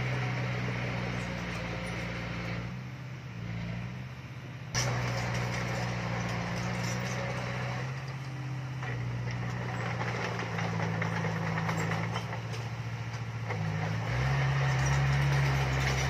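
Heavy construction machine's diesel engine running steadily with a low hum. It eases back for a couple of seconds, then comes in louder with a sharp knock about five seconds in, and steps up again near the end.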